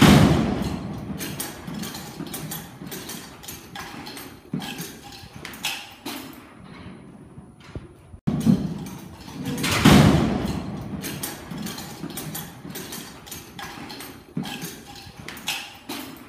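A young bucking bull leaving a steel bucking chute: a loud bang at the chute, then scattered clanks of steel gates and pens and thuds of hooves in the dirt. The same sequence is heard twice, the second bang about ten seconds after the first.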